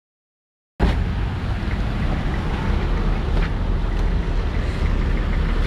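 Silence, then a sudden cut in under a second to a steady, heavy rumble of wind buffeting the camera microphone over general street traffic noise.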